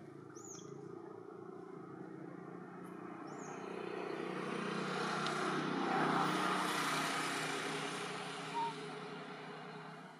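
A motor vehicle passing by: a broad rushing noise swells to a peak about six seconds in and then fades away. Short bird chirps come near the start and about three seconds in, and a brief high pip sounds near the end.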